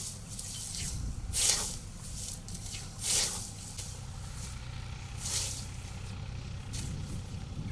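Hand scythes swishing through standing hay grass, four mowing strokes about every one and a half seconds, over a low steady engine rumble.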